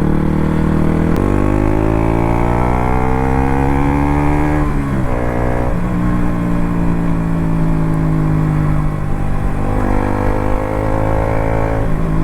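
KTM RC 200's single-cylinder engine pulling under acceleration while riding: the note climbs steadily for about four seconds, drops sharply at an upshift about five seconds in, then holds fairly steady, with further shifts near ten and twelve seconds.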